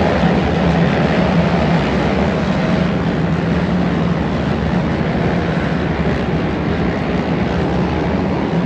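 A pack of racing quad bikes (ATVs) with their engines running together in a loud, steady drone.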